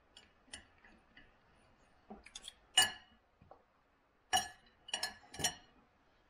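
Knife and fork clinking against a plate while cutting food: scattered sharp clinks with a brief ring, the loudest about three seconds in and a quick run of three near the end.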